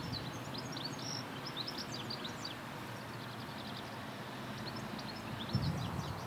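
Small songbirds chirping and twittering in quick high calls over a steady wind hiss. Footsteps thud in again near the end.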